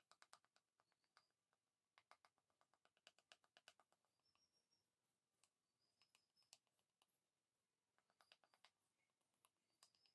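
Very faint runs of quick, light clicks and taps in clusters every second or two, with a few short high clinks among them.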